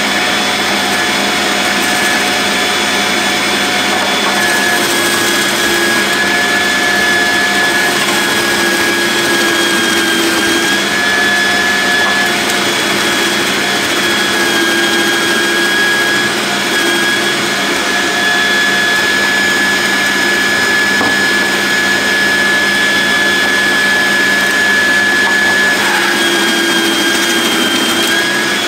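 Electric drum grater's motor running with a steady high whine as white cabbage is pressed down into the spinning drum and shredded. The whine shifts a little in pitch now and then as the load changes.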